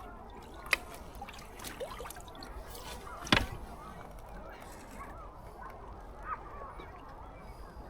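Geese honking repeatedly in the background, with two sharp clicks, one under a second in and a louder one about halfway through.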